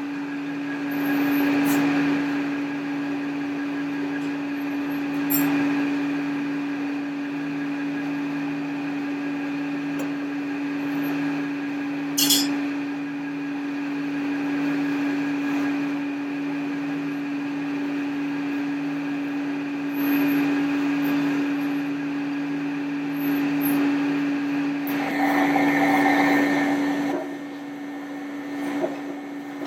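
A steady machine hum with a constant low tone, with a few brief clicks and a louder stretch near the end.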